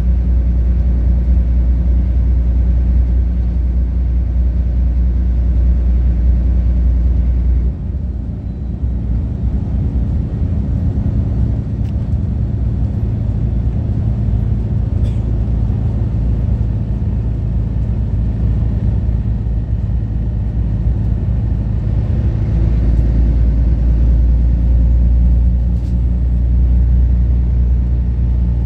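Interior noise of a Volvo 8500 B12BLE city bus cruising on a motorway: a steady low engine drone mixed with tyre and road noise. The deep drone eases about eight seconds in and grows strong again around twenty-two seconds.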